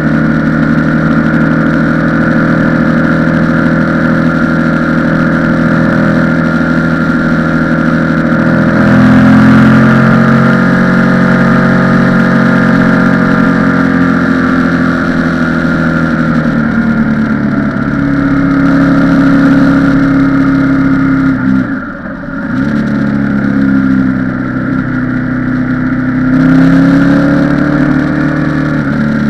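Motorcycle engine running under way at road speed. The engine note climbs about nine seconds in, then slowly eases back. About 22 seconds in it drops away sharply for a moment before climbing again.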